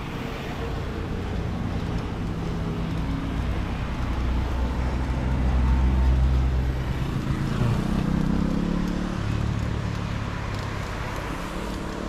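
Road traffic: a car's engine grows louder to a peak about halfway through, then fades, over a steady rumble of road noise.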